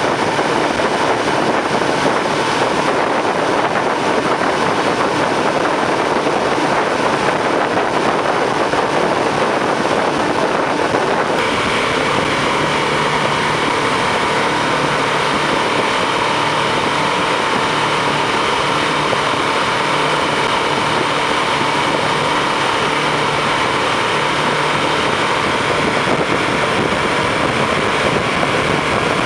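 Motorboat running at speed, a steady engine noise mixed with water rushing past the hull and wind on the microphone. The sound changes abruptly about eleven seconds in, then carries on steadily.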